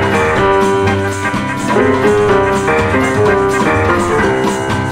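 Music from a 1969 non-stop medley LP: held melody notes over a steady drum beat.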